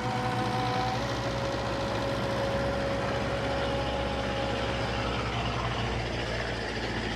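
Heavy diesel construction machinery running steadily, with a low pulsing engine note and a faint steady whine above it.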